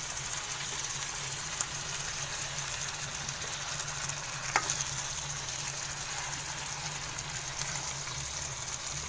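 Chicken pieces sizzling in butter and cream in a pan while a spoon stirs them, a steady frying hiss with two light knocks of the spoon against the pan.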